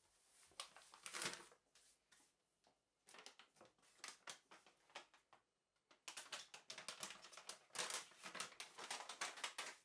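Paper flour bag rustling as the last flour is shaken out and the bag is put down, then from about six seconds in a dense run of crinkles as a sea salt packet is handled and opened.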